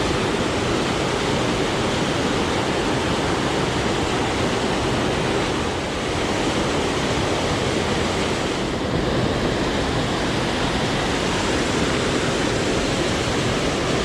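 Small mountain creek rushing steadily over rocks, a constant loud wash of water.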